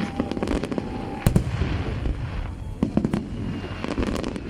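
Fireworks going off: a rapid series of sharp bangs and crackling pops, with the biggest bangs about a second in and again around three seconds in.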